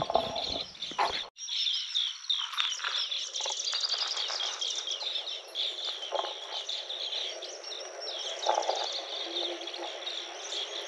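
Many birds chirping and trilling together in a dense chorus of short, high calls. It starts abruptly about a second in.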